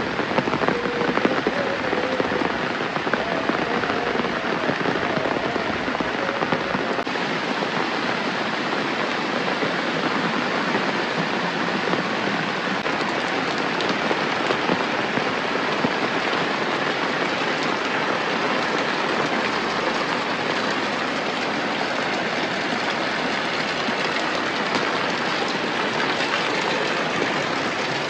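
Steady rain falling, an even, dense patter of drops with no break.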